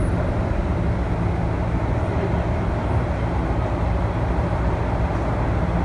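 Toronto Rocket subway train running between stations, heard from inside the car: a steady low rumble of wheels on rail with a faint steady hum.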